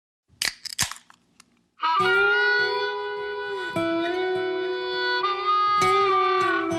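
Instrumental intro of a pop song. A few short guitar plucks come first, then about two seconds in the band enters with a lead melody of long held notes that slide from one pitch to the next over guitar.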